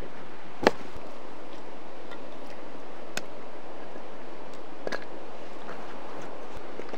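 Steady rushing of river water, with a few sharp clicks or knocks, the loudest about a second in.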